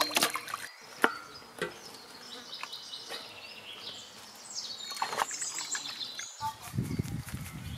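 Water splashing as raw lamb is washed by hand in a metal basin, a few sharp splashes in the first second or two. After that, faint high-pitched chirping in the background, with a low rumble near the end.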